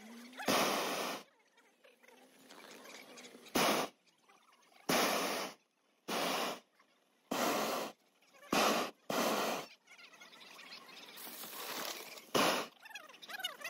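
Hot air balloon propane burner fired in a string of short blasts, about ten, each a loud rushing noise that starts and stops abruptly and lasts under a second, with quiet in between.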